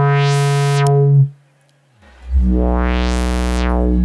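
Modular synthesizer tone through a Make Noise QPAS quad-core stereo filter, its cutoff swept up and back down. There are two held notes, the second lower and starting about two seconds in, and each goes bright and then dark again.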